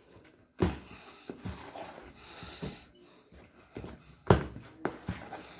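A few irregular knocks and thumps, with a brief rustle about two seconds in, the loudest knock a little past four seconds in.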